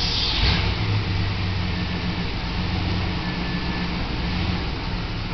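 Full-size van's engine running with a steady low hum at idle as the van creeps slowly forward.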